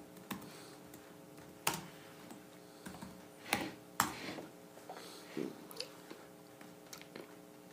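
Irregular taps and clicks on a laptop keyboard, some scattered light strokes and a few sharper ones about two, three and a half and four seconds in.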